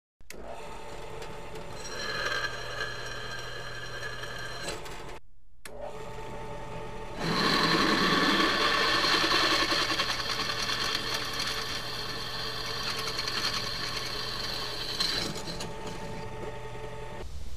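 Benchtop drill press running, its bit cutting into quarter-inch mild steel plate. Over the steady motor hum, a louder high-pitched whine sets in about seven seconds in and eases off about fifteen seconds in.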